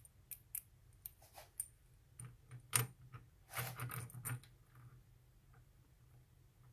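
Light metallic clicks and clinks of a hex key and small steel parts being handled on a mini lathe's compound slide during reassembly. The clicks are scattered, the sharpest about three seconds in and a quick run of them around four seconds, then it fades.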